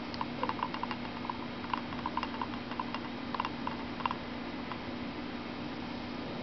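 Grey tree frog giving a mating call: an irregular run of short, quick clicks that stops a few seconds in, over a steady low hum.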